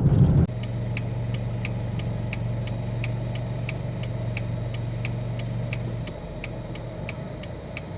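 Car engine idling, heard from inside the cabin, after the louder driving rumble drops away about half a second in. A light, regular ticking runs alongside at about three ticks a second.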